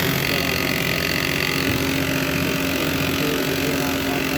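HP LaserJet 1020 printer running its power-on cycle, its motor and gear train turning with loud mechanical noise and a steady high whine that starts and stops abruptly. The noise is the fault being diagnosed, which the technician traces to the paper pickup assembly.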